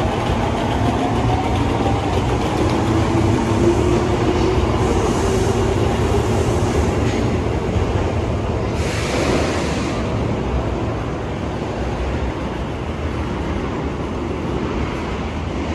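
Osaka Metro Yotsubashi Line subway train pulling out of the underground station. Its traction motors whine, rising in pitch as it accelerates, over a steady rumble of wheels on rails. About nine seconds in there is a brief hiss.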